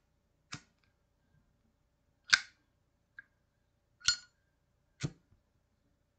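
Zippo windproof lighter's hinged metal lid clicking open and snapping shut: four sharp metallic clacks with a brief ring, a second or two apart, and a faint tick between them.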